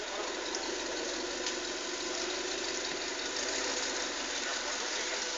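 Off-road vehicle's engine idling steadily under an even hiss.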